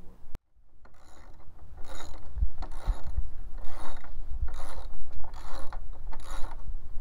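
Hand ratchet wrench turning a bolt into a wooden post: a run of repeated ratcheting strokes, roughly one every half second or so, starting about a second in.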